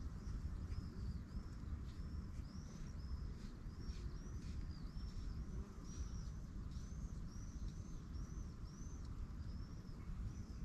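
A small bird calling over and over: short high chirps, each rising and falling, about two or three a second, over a steady low rumble.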